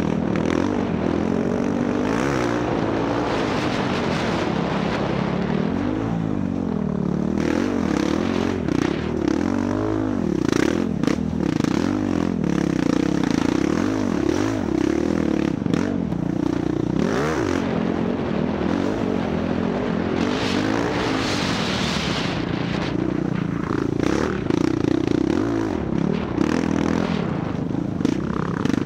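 Dirt bike engine under constant throttle changes, its pitch climbing and dropping again and again, with frequent short knocks and clicks over it.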